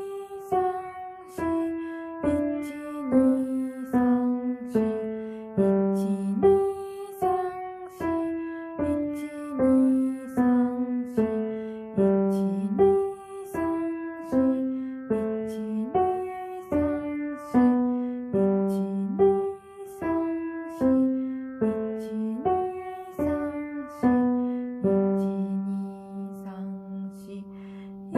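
Piano playing a simple melody of single struck notes, about two a second, each ringing and fading, with a longer held low note near the end.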